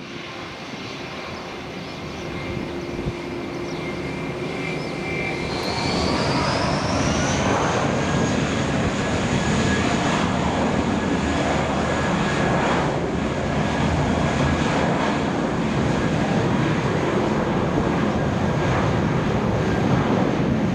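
Airbus A319-100 twin jet engines spooling up for takeoff: a rising whine about six seconds in, then held steady and loud at takeoff thrust as the airliner rolls down the runway.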